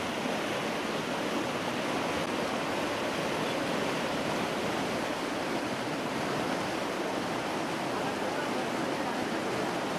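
Floodwater in a swollen, muddy river rushing past: a steady rush of turbulent water.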